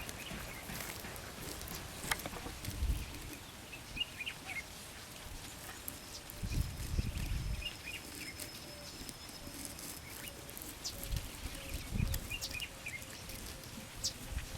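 Wild birds calling in bushland: scattered short high chirps, and from about halfway a run of low, evenly spaced notes at about two a second. A few low thuds come and go underneath.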